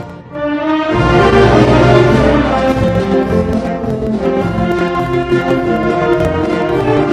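Orchestral music led by brass, with horns and trombones. It drops briefly just after the start, then swells to a full, loud passage of sustained chords from about a second in.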